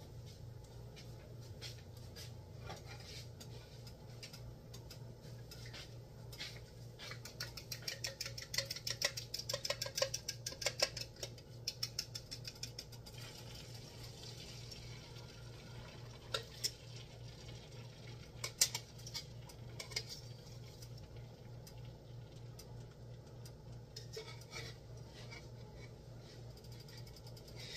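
Beaten eggs being whisked in a bowl: a quick run of light clicking in the middle, then a few separate clinks of the bowl and utensil. A steady low hum runs underneath.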